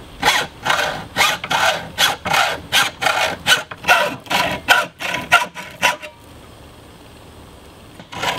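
Hacksaw cutting thin copper sheet, quick back-and-forth strokes at about three a second. The sawing stops about six seconds in and starts again near the end.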